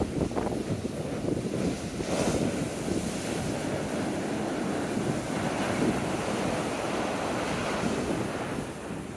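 High, storm-driven surf breaking and washing up the sand in a steady rush, with a wash that swells about two seconds in. Wind blows across the microphone.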